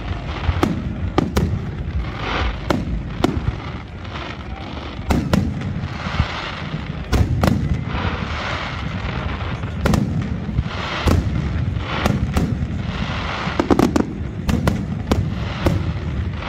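Aerial firework shells bursting one after another, a sharp bang roughly every second, sometimes two close together. Between the bangs, glittering stars keep up a steady crackle.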